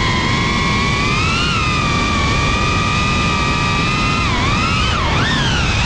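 FPV drone's brushless motors and propellers whining at a fairly steady high pitch, then dipping and swooping up and down in pitch near the end as the throttle changes, over a steady rush of propwash and wind noise.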